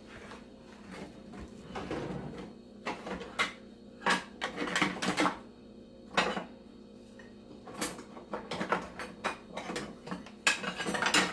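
Kitchenware being handled: scattered clinks and knocks of pots, lids and utensils, some in quick clusters, the loudest near the end.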